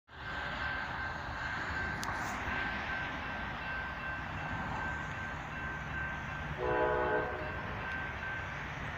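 Approaching CSX freight locomotive sounding one short blast on its multi-chime horn about two-thirds of the way in, over a steady rumble. A grade-crossing bell rings steadily beneath it.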